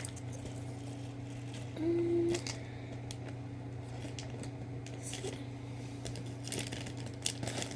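Light clicks and faint rustles of candy packaging being handled over a steady low room hum. A short, steady low tone sounds about two seconds in.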